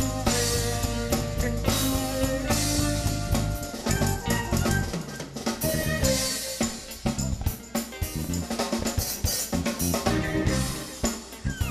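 Live band music: a drum kit and a tambourine with an electric violin. About four seconds in, the heavy bass drops out and the drum hits carry on.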